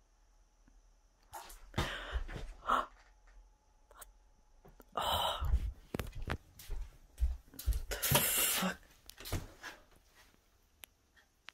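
Scattered short handling sounds of someone moving with a phone in a small room: breaths, rustles and knocks. The loudest burst comes about five seconds in, and a brief hissing rush follows about three seconds later.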